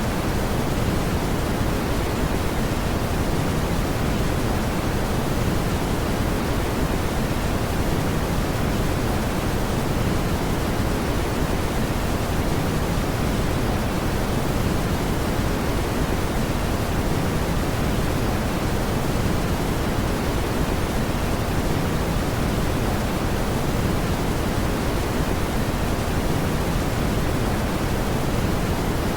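Continuous brown noise: a steady, even rushing hiss weighted toward the low end, with no change in level.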